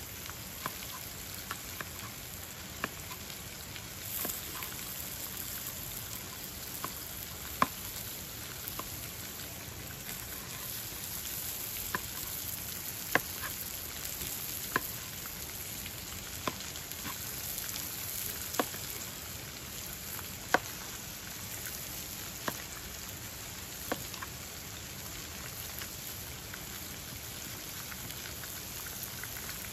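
Meat sizzling in a frying pan on a portable gas stove, a steady hiss, while a knife slices a red onion on a plastic cutting board with sharp taps every second or two.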